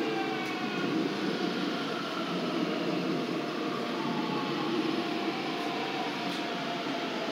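Busan Metro Line 2 subway train running, heard from inside the car: a steady rumble of wheels on track, with the motors' whine tones slowly shifting in pitch.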